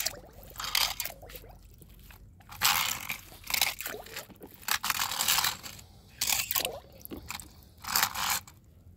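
Plastic toy car transporter and die-cast toy cars being handled: a series of short scraping and rattling bursts, about six of them, as cars are pushed along and off the plastic ramp.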